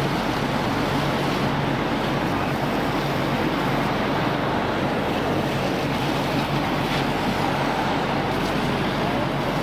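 Steady engine rumble with a low, even hum, under a constant rushing noise, typical of fire apparatus running at the scene.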